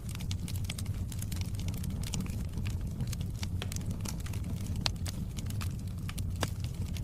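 Wood fire crackling in a fireplace: frequent small pops and snaps over a steady low rumble, with a sharper pop about five seconds in.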